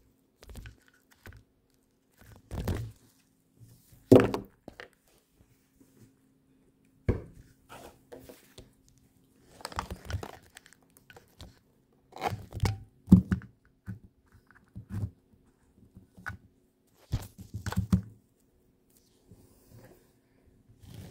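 Phone handling noise: irregular rustling, rubbing and knocks against the microphone as the phone is moved about by hand, with one loud knock about four seconds in.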